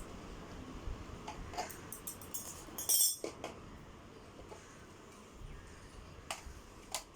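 Small clicks and clinks of robotics-kit parts being picked up and handled, with one louder, brief clatter about three seconds in and two sharp clicks near the end.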